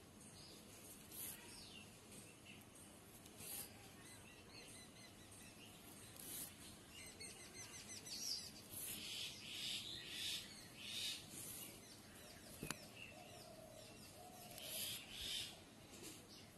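Faint rasping of wool yarn being drawn through coarse jute cloth as a needle works cross stitches, in short repeated pulls, with small birds chirping in the background.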